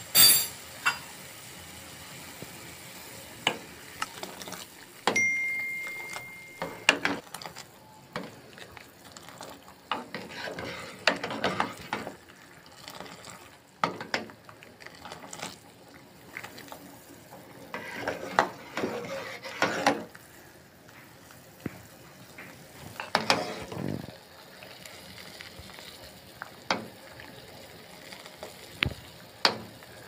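A metal ladle stirring boiling kahwa in an aluminium saucepan, scraping and clinking against the pan in irregular bursts over the bubbling of the liquid. A sharp clink comes at the very start, and a short steady beep-like tone sounds a few seconds in.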